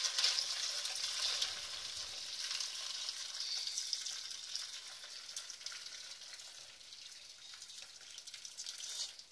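Hot cocido broth pouring in a steady splashing stream through a stainless-steel conical strainer into a metal pot, gradually weakening as the flow thins.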